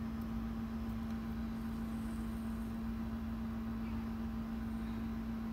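A steady low hum over faint background hiss, unchanging throughout, with no distinct event.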